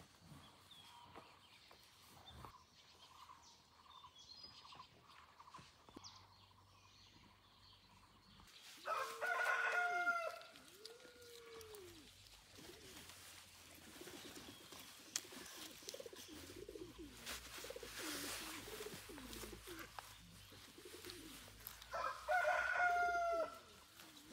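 Rooster crowing twice, about thirteen seconds apart, with softer, lower chicken calls in between.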